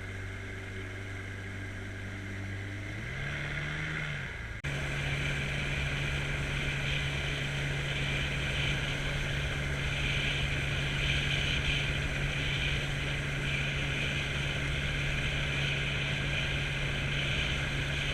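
Boat motor running steadily, revving up about three seconds in, then running faster and louder with a steady hiss after an abrupt break just before five seconds in.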